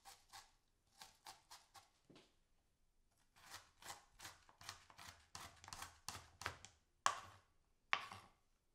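Chef's knife finely dicing onion on a chopping board: runs of quick chops, about four a second, with a pause around two to three seconds in and two louder, sharper chops near the end.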